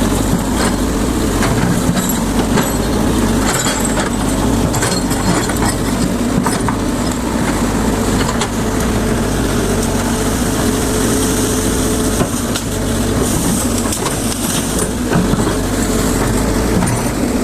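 Excavator's diesel engine running steadily under load, with scattered sharp cracks and snaps, most in the first few seconds, as the machine breaks brush and branches.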